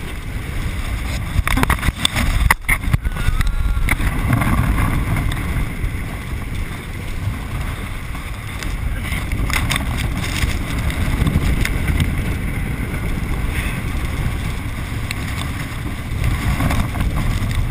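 Water rushing and splashing with wind buffeting the microphone as an inflatable tube is towed fast across a lake, bouncing over the boat's wake. A few sharp knocks of spray and impacts come about two to three seconds in and again near ten seconds.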